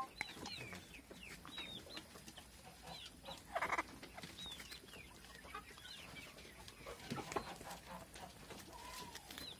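A nutria biting and crunching an apple held out by hand, with short crunchy clicks and one louder crunch about three and a half seconds in. Behind it run high chirps falling in pitch, about two a second, from poultry.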